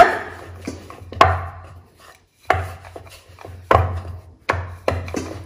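Wooden rolling pin rolling and knocking on a round wooden board as roti dough is rolled out thin: about five sharp wooden knocks, roughly a second apart.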